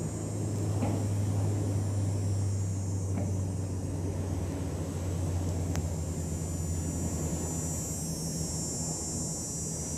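A steady low drone of a distant motor, a little louder about a second in, with a faint high-pitched whine above it.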